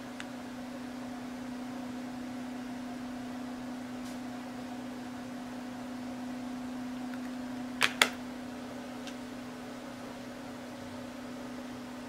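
Steady low hum with a few overtones, like a fan or mains hum, broken by two sharp clicks a fraction of a second apart about eight seconds in.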